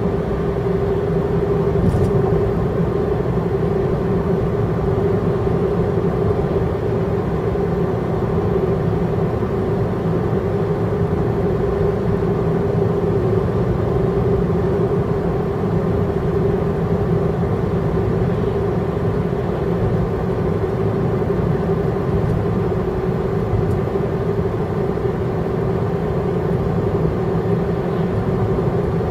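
Inside a car driving along a road: a steady rumble of road and engine noise with a constant hum running through it, and one faint click about two seconds in.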